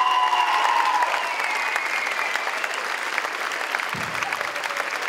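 Audience and performers applauding, a dense steady clapping. A few long held tones sound above it in the first three seconds, and there is a soft low thump about four seconds in.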